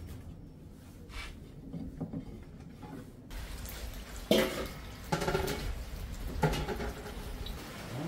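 Rain dripping and running off a roof, with a few brief sounds with a clear pitch in the second half.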